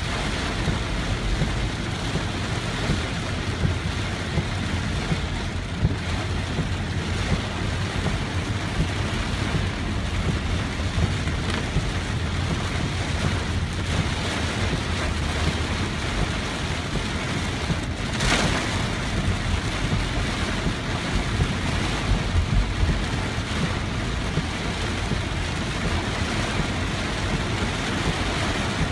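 Heavy rain on a moving car, heard from inside the cabin: a steady rushing hiss of rain and wet road over a low driving rumble. A single sharp knock about eighteen seconds in.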